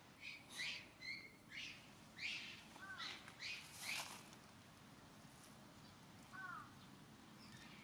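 Birds calling: a quick run of short, harsh calls in the first four seconds, then a single call about six and a half seconds in.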